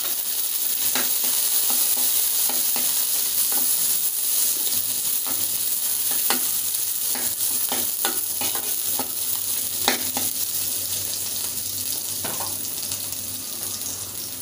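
Chopped garlic, onion and green chilli sizzling in a little oil in a kadai, stirred with a metal spatula that scrapes and clicks against the pan every so often.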